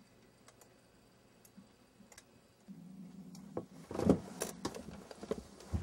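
Faint clicks at a computer desk. About three seconds in, a low steady hum starts, then comes a loud burst of rustling and knocks from someone moving in a desk chair as she gets up.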